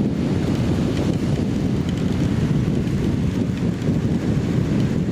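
Steady, loud wind rush buffeting the microphone of a motorcycle riding at highway speed in the rain, a low rumble with no clear engine note above it.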